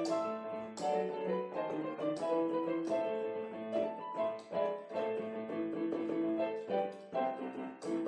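Background piano music: a keyboard playing a melody of held notes over a steady accompaniment.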